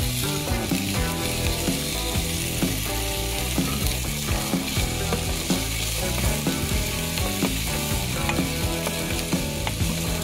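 Ginger, garlic and onion sizzling in hot cooking oil in a frying pan, with a spatula stirring and scraping against the pan in quick repeated strokes.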